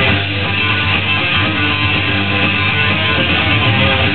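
Guitar music playing steadily.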